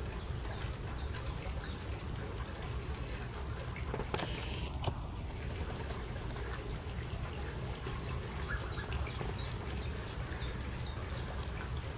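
Gosling peeping: runs of short, high peeps in the first couple of seconds and again in the second half, over a steady low rumble.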